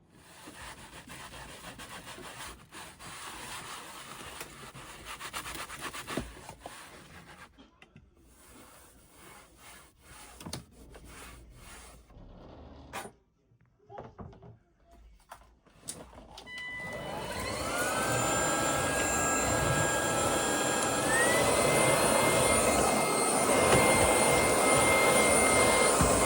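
Handling and rubbing noises for about the first sixteen seconds. Then a vacuum cleaner motor starts, its whine rising in pitch and growing loud, steps up in pitch again about five seconds later, and runs on steadily.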